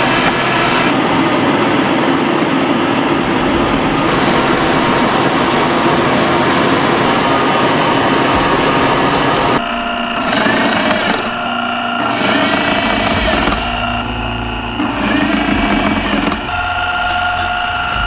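Leather-working machines running: a steady, loud machine whir for about the first half, then, after a sudden change, a NIPPY leather skiving machine running, its pitch bending up and down several times while blue glove leather is guided through it.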